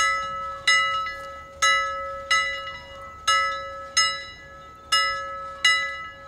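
A bell struck over and over in an uneven, paired rhythm, about three strokes every two seconds. Each stroke rings out and fades under the next, over a steady hum of the bell's low note.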